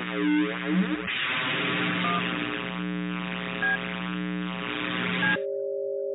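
Distorted electronic drone of sustained low tones under a hiss with a swirling, sweeping wash. About five and a half seconds in it gives way to a steady two-note tone that cuts off abruptly.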